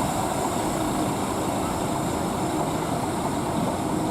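A large coach bus's diesel engine running steadily.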